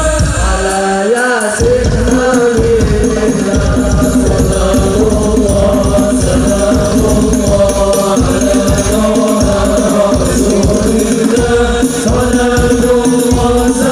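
Hadroh ensemble performing sholawat: male voices chanting a melody in unison over rebana frame drums beating a steady rhythm. The drums drop out briefly about a second in, then resume.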